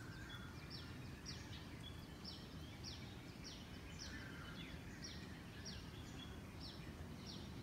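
Birds calling: a short, high, slightly falling note repeated roughly twice a second, with a few fainter calls among them, over a steady low background rumble.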